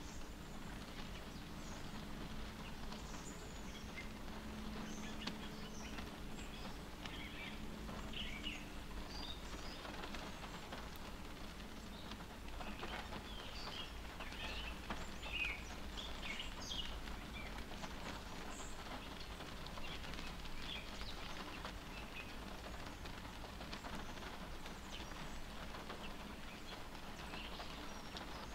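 Light rain pattering on a car's windshield and roof, heard from inside the cabin, as scattered drop ticks over a steady low rumble.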